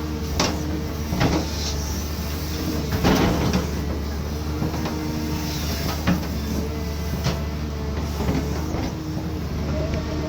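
Cat 320D2 hydraulic excavator working: its diesel engine runs with a steady low hum under a hydraulic whine that shifts in pitch. Sharp knocks and clanks are scattered throughout, the strongest about three seconds in.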